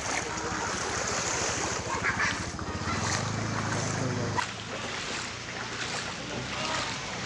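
Wading through shin-deep floodwater: water sloshing and splashing with each step, with wind buffeting the microphone. A low steady hum joins in for a second or so about three seconds in.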